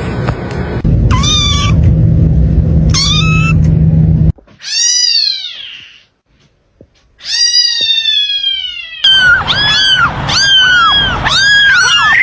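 Cat meowing: two short meows, then two long drawn-out meows that fall in pitch, then a quick run of short meows near the end. A low steady hum sits under the first meows and cuts off suddenly.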